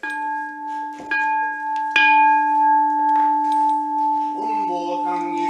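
A Buddhist temple bowl bell is struck three times in the first two seconds, the third strike the loudest, and each strike rings on in long steady tones. A man's chanting voice starts over the ringing near the end.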